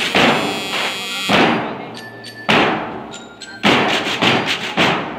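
Marching band drums beating in uneven strikes about half a second to a second apart. Short bell-like metallic notes ring between them, and a held high note sounds in the first second or so.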